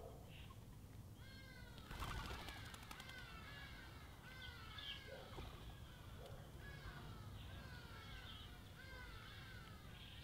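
Small songbirds chirping again and again, each chirp a quick downward-sliding note, with a brief rattling flutter about two seconds in.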